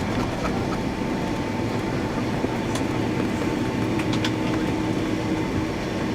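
Boeing 757 cabin noise: a steady rumble of the engines and airframe heard from inside the passenger cabin, with a faint steady hum and a few light clicks.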